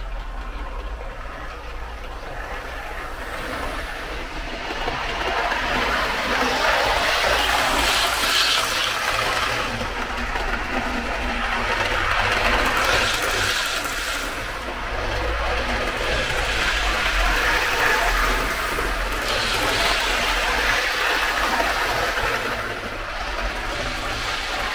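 Hornby OO gauge Class 156 Sprinter model train running on the layout's track, a continuous mechanical running noise that grows louder a few seconds in and swells several times as the model passes close by.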